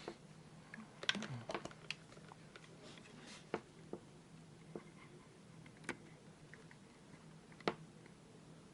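Scattered light clicks and taps from handling small parts of a blood pressure monitor: a quick run of clicks about a second in, then single taps every couple of seconds, over a faint steady hum.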